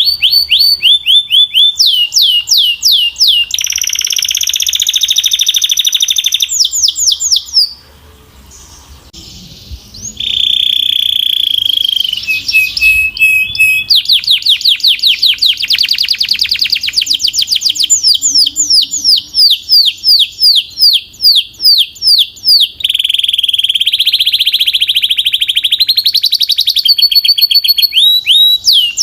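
Belgian canary singing a loud song made of fast runs of repeated down-slurred notes and rolling trills. The song breaks off briefly about eight seconds in.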